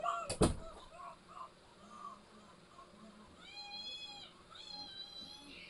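A sharp click, then a cat meowing twice near the end in two short, high, arched calls about a second apart.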